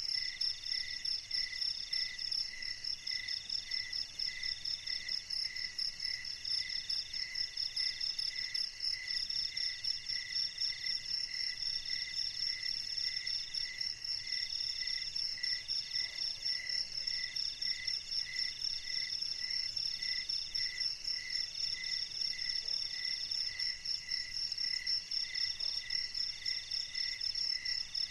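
A chorus of crickets chirping steadily in several overlapping rhythms: a fast high trill, a middle trill in trains of about a second with short breaks, and a lower chirp about twice a second.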